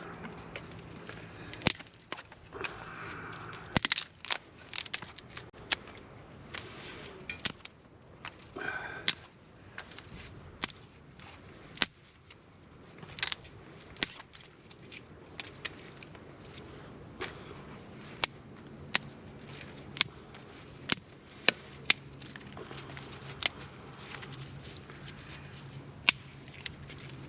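Dry kindling giving many irregular, sharp snaps and cracks, some of them loud, scattered through the whole stretch.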